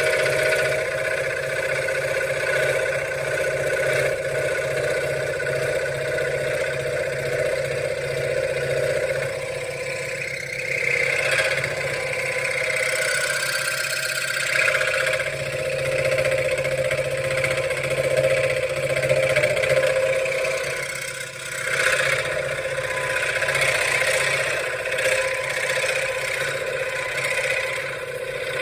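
Benchtop scroll saw running and cutting wood: a steady motor hum with the blade's rapid reciprocating strokes, and a rasping cut noise that swells and eases as the work is fed through the blade.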